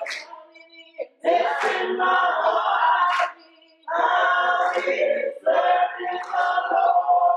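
Small group of men and women singing a gospel song together, in short phrases with brief pauses between them.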